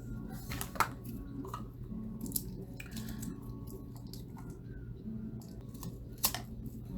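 A few sharp clicks and softer taps and rustles from handling makeup containers and brushes, over a steady low hum.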